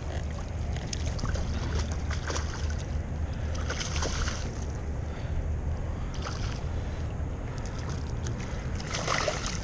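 A hooked fish splashing at the water surface several times as it is played in, with the strongest splash about four seconds in. Steady low wind rumble on the microphone runs under it.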